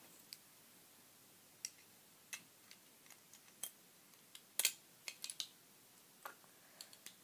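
Scattered faint clicks and taps, with a denser and louder run of clicks about four and a half to five and a half seconds in.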